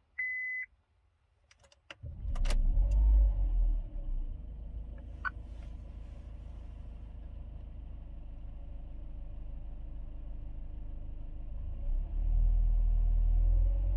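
A short seatbelt-warning chime beeps once. About two seconds in, the 1.3-litre four-cylinder engine of a Honda Fit Shuttle Hybrid starts, cranked by its hybrid motor, and runs at a raised idle, then settles into a steady idle. Near the end the revs begin to climb.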